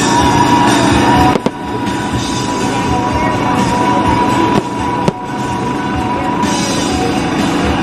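Aerial fireworks shells bursting in sharp bangs, about a second and a half in and twice around five seconds in, over continuous music.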